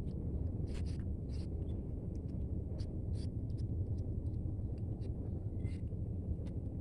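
A kitten crunching dry cat kibble: irregular small crisp crunches, a few louder than the rest, over a steady low rumble.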